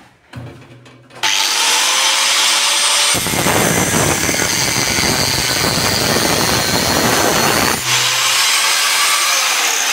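Handheld angle grinder with a cut-off disc spinning up to full speed, then cutting through a square steel tube for about five seconds, sparks flying. It then runs free again.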